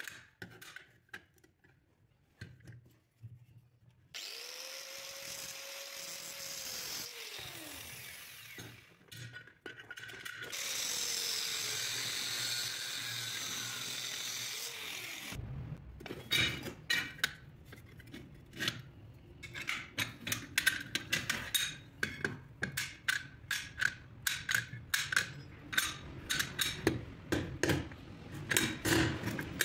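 Angle grinder cutting a steel bolt clamped in a vise, in two runs: one from about four seconds in that ends as the disc spins down, and a louder one from about ten seconds in that stops suddenly. Before the first cut there are a few light metal clicks, and after the second a fast run of sharp metal clicks and knocks as the steel parts of a large locking pliers are handled.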